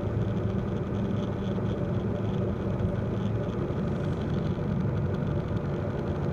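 Steady drone of a Cozy MKIV's pusher engine and propeller heard from inside the cockpit on final approach, with no change in pitch.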